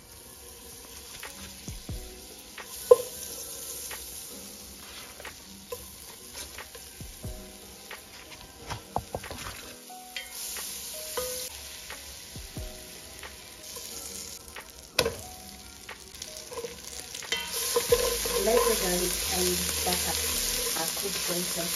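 Butter and garlic sizzling in a stone-coated pot while a wooden spatula stirs and scrapes it, with scattered clicks and two sharp knocks of the spatula against the pot. The sizzle grows louder near the end.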